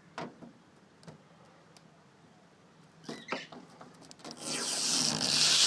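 Protective plastic film being peeled off a PC case: a few light clicks and knocks of handling, then, about four seconds in, a loud, long tearing rasp as the film comes away.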